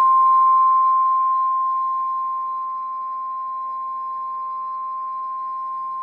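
Emergency alert warning tone: a single steady pitch of about 1050 Hz, the NOAA Weather Radio warning alarm tone that comes before a severe thunderstorm warning. It starts loud, eases down over the first three seconds, then holds steady.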